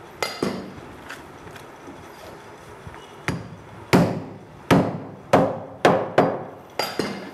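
Heavy meat cleaver chopping through a goat's rib section onto a wooden chopping block, splitting the ribs down the middle. A few light taps come first, then from about three seconds in a run of about eight hard chops in quick succession.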